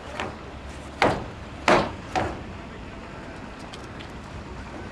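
Sharp stamps and strikes of a Xingyiquan practitioner's footwork on wooden deck boards: four crisp knocks in the first two and a half seconds, then only a low background hiss.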